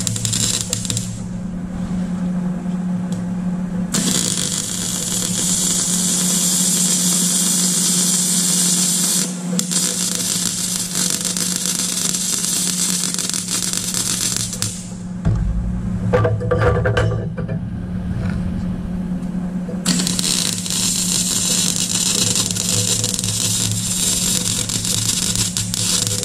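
MIG welding arc hissing and crackling while runs are laid on thin 1.2 mm plate. The arc stops and restarts several times, with pauses of a few seconds. A steady low hum runs underneath.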